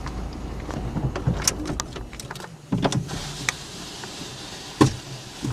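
Inside a car: a low engine rumble for the first half, then scattered clicks and knocks of things handled in the cabin.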